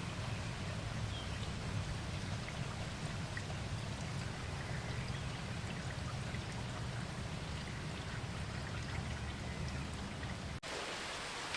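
Recorded rain ambience: steady rain with a low rumble underneath. About ten and a half seconds in, it drops out for an instant and comes back as a brighter rain hiss without the rumble.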